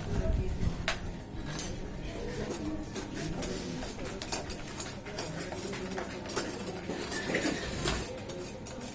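Irregular clinks and knocks of hard metal pieces being handled, a few sharp strikes a second at uneven spacing.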